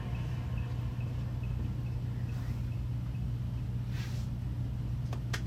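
Steady low hum in a quiet theatre after the music has stopped. A few faint ticks fade out early, and the first scattered handclaps of applause come in just at the end.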